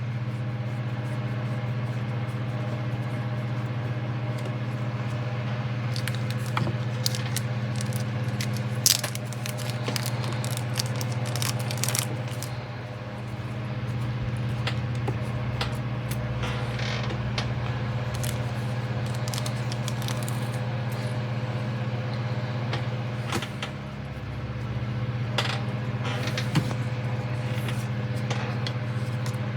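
Small plastic and metal model-kit parts being handled, giving scattered light clicks and rattles over a steady low background hum.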